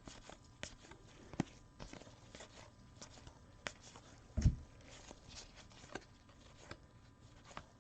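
Trading cards being handled and flipped through by hand: scattered light clicks and rustles, with one soft thump about four and a half seconds in.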